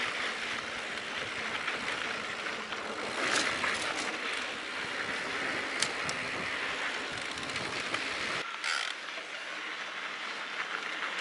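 Mountain bike rolling down a dirt singletrack: a steady noise of the knobby tyres on the dirt and the bike rattling, with a few sharp clicks and knocks over bumps. About eight seconds in the low rumble drops away and the sound turns thinner.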